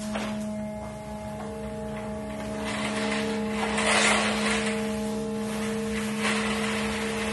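Sustained drone of layered held tones from the performance soundtrack: a low steady tone throughout, with higher notes joining and dropping out. A rushing hiss swells and fades about four seconds in.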